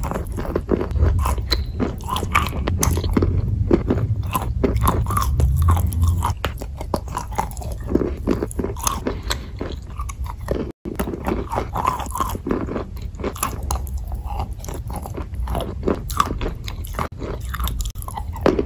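Close-miked biting and chewing of a bar of edible chalk coated in clay paste: dense, irregular crunches, with a brief cut in the sound about eleven seconds in.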